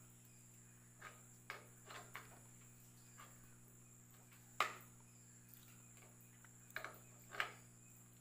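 Light clicks and knocks from a motorcycle phone holder and mirror mount being handled and adjusted on the handlebar, scattered irregularly. The loudest is a sharp knock near the middle, and they sit over a quiet, steady background.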